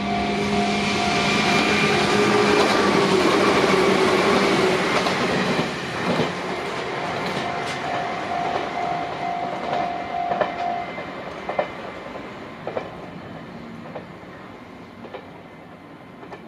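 An Izuhakone Railway Sunzu Line electric train passes over a level crossing, its wheels clacking over the rail joints. The crossing's warning bell rings in a steady repeating tone. The train's noise fades away, the bell stops about eleven seconds in, and a few isolated clacks follow.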